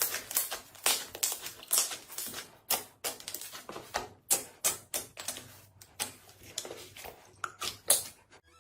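Slime being pressed and poked, giving a quick run of sharp clicks and pops, about three a second.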